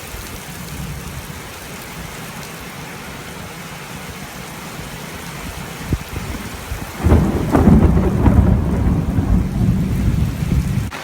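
Heavy rain falling steadily, then a sharp crack of thunder about six seconds in, followed a second later by a loud rolling thunder rumble that lasts to the end.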